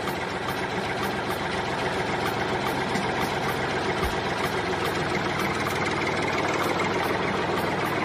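Steady engine running sound at an even idle, the kind of tractor engine sound laid over toy tractor play.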